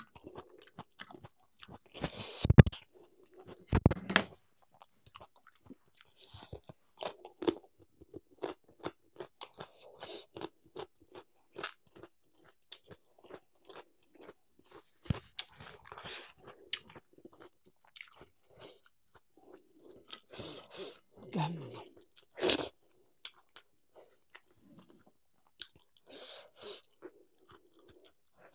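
A person chewing and crunching a meal of curry, dal and rice with raw salad, with many short wet mouth clicks. Louder crunchy bites come at about two and a half seconds, at four seconds and again past twenty-two seconds.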